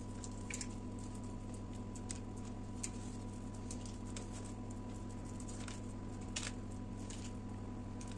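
Silicone pastry brush dabbing and spreading egg-yolk wash over raw börek dough, with soft wet squishes now and then, over a steady electrical hum.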